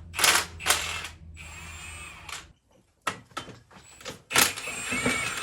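A handheld power tool running in short bursts: two quick zips, a longer run, a short pause, a few brief bursts, then a longer run near the end, its motor pitch rising and falling. A low steady hum under the first half stops about halfway.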